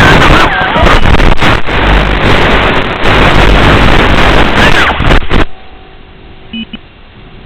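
3-inch FPV drone's motors heard through a distorted onboard microphone: a harsh, clipping noise whose pitch rises and falls with the throttle. It cuts off abruptly about five and a half seconds in, leaving a low hum and a short double beep.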